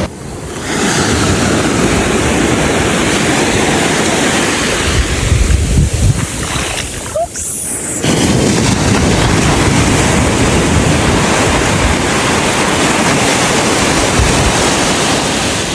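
Sea surf washing onto the beach, with wind buffeting the microphone.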